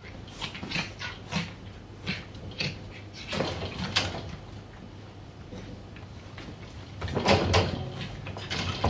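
Two Shiba Inu puppies play-wrestling: irregular scuffles and knocks of paws and bodies against the floor, with a louder tumble about seven seconds in.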